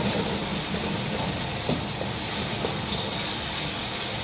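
Steady whooshing noise of a kitchen smoke-extractor blower running, mixed with the sizzle of chili paste frying in a wok and a few light scrapes of a wooden spatula.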